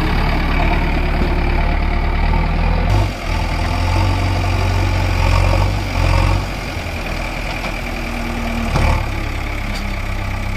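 Heavy diesel engine idling steadily, its level and tone shifting a couple of times.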